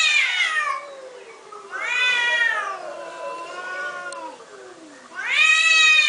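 Two domestic cats meowing at each other in long, drawn-out yowls that rise and fall in pitch. One call fades out about a second in, a second lasts about three seconds in the middle, and a third starts near the end.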